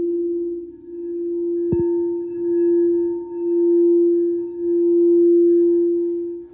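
Singing bowl ringing with a steady low hum that swells and fades in slow waves. It is struck again about two seconds in, which renews the ring and brings up a higher overtone.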